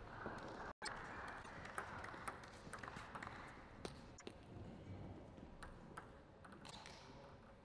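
Table tennis ball clicking sharply off bats and table in a rally, a dozen or so faint hits at uneven intervals of about half a second.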